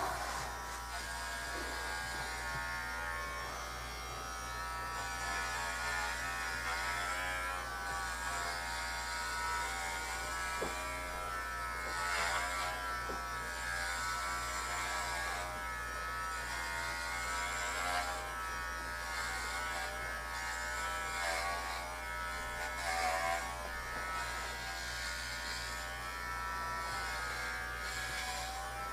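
Cordless electric pet clippers buzzing steadily as they cut through a dog's curly coat, the pitch dipping and wavering as the blade moves through the hair.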